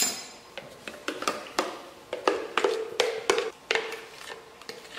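About a dozen irregular taps and knocks on a plastic blender jar as thick, set pavê cream is worked out of its upturned opening into a plastic tub. Several of the knocks ring briefly.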